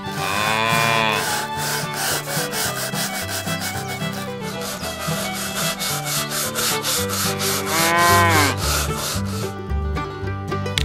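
Toothbrush bristles scrubbing a plastic toy cow in quick, even rhythmic strokes. A cow moos twice, about half a second in and again about eight seconds in, over background music with a steady bass line.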